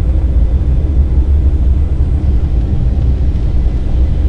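Steady low rumble inside the passenger cabin of an Embraer E-190 airliner in flight: its turbofan engines and the airflow over the fuselage during the approach.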